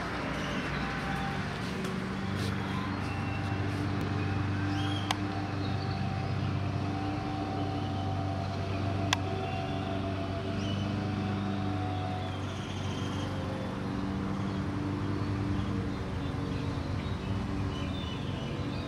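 A steady low machine hum with a constant pitched drone, and two sharp clicks about five and nine seconds in.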